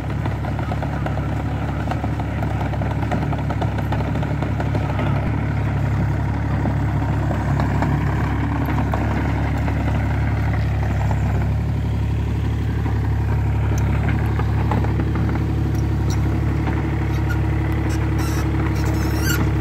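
Takeuchi TB135 mini excavator's diesel engine running steadily as its arm and bucket are worked, with a few short clanks near the end.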